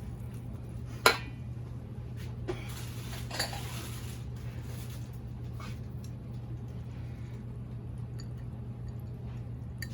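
Salad being served: a utensil clinks once against a dish about a second in, then soft scraping and rustling of leaves, over a steady low hum.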